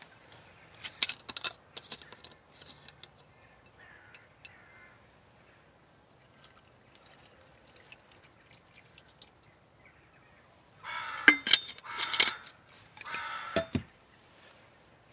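A few clicks and knocks of things being handled, a faint pour of liquid from a stainless steel bottle into a pot, then three loud crow caws near the end.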